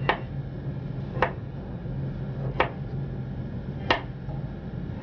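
Kitchen knife slicing a carrot into thin lengthwise strips, the blade striking the plastic cutting board four times, about one sharp tap every second and a third.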